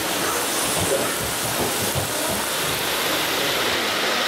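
Steady rushing and rumbling of model trains running on the layout's tracks, with faint irregular low knocks.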